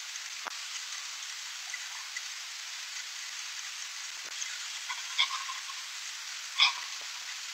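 Steady hiss from a night trail camera's audio, with two short, sharp calls from something unseen about five and six and a half seconds in, the second one louder.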